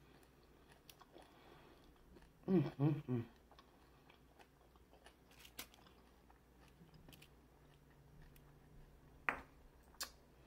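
Close-miked chewing of a crunchy hard-shell beef taco, with scattered small crunches and mouth clicks. A short voiced hum or murmur comes about two and a half seconds in, and two sharper clicks come near the end.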